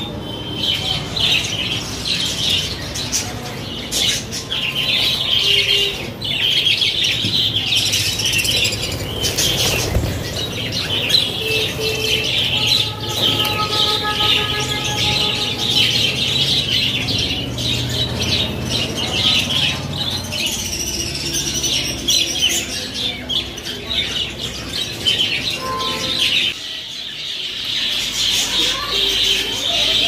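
A large flock of budgerigars chattering and warbling continuously, many birds calling at once.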